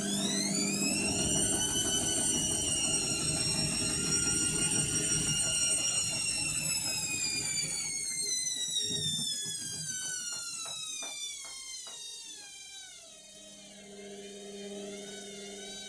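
Indesit washing machine spinning an unbalanced load: the motor's high whine climbs to full spin speed over a rough rumble from the drum, holds, then winds steadily down, with a run of knocks as it slows. A steady low hum is left once the whine has faded.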